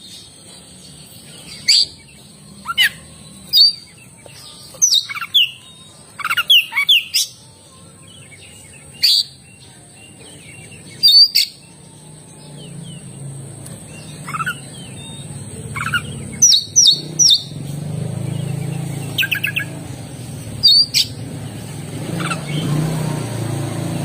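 Oriental magpie-robin (kacer) singing in sharp separate notes and quick falling chirps, with short pauses between phrases. A low hum rises underneath from about halfway through.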